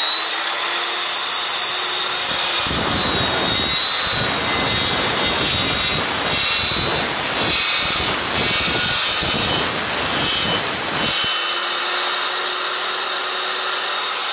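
Evolution S355CPS cold-cut metal saw with its 355 mm steel blade. The motor runs with a steady high whine; about two and a half seconds in, the blade bites into a steel tube and cuts through it with a rough, grinding cutting noise for about eight seconds. Near the end it runs free again, back to the plain whine.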